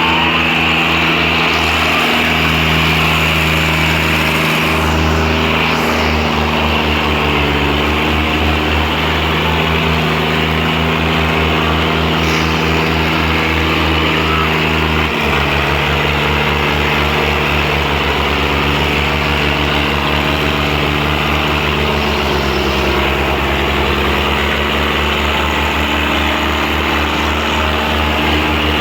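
Diesel tractor engines running hard under steady heavy load, pulling against each other in a tractor tug-of-war. It is a steady, loud drone, and the engine pitch drops a step about fifteen seconds in.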